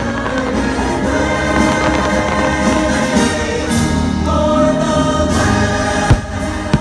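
Choir singing over orchestral music from a fireworks show's soundtrack, with held notes throughout. Two sharp firework bangs cut through near the end.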